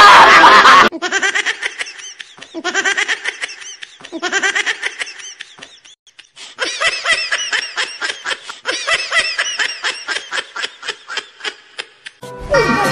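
A loud scream for about the first second, then a person laughing in bursts, turning into a quick run of short ha-ha-ha pulses from about halfway. Music starts near the end.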